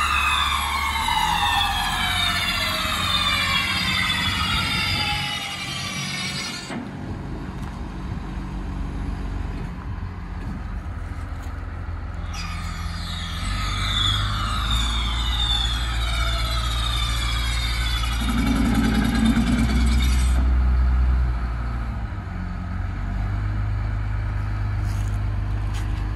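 Demag AC 40 City all-terrain crane's diesel engine running, a steady low rumble under a hiss that carries sweeping whistly tones. The hiss drops out twice for several seconds, and the engine note grows louder about 18 seconds in.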